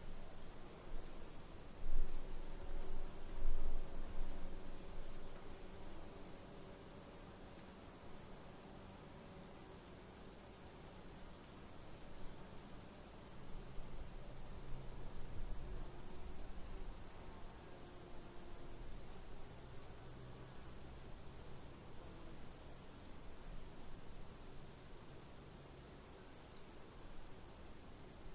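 Crickets chirping at night: an even, rapid pulsed chirping over a continuous high-pitched insect trill, with a couple of low bumps near the start.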